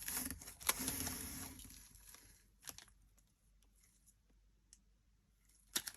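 Crafting supplies and their packaging being handled, rustling and crinkling for about two seconds, then a few faint clicks and taps.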